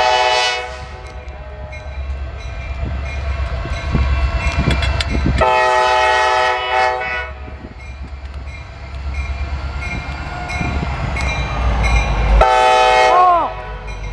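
Norfolk Southern diesel locomotive's air horn sounding three chords: one ending just after the start, a long one about five seconds in lasting about two seconds, and a shorter one near the end whose pitch sags as it cuts off. Between the blasts comes the low rumble of the diesel engine and the wheels on the rails.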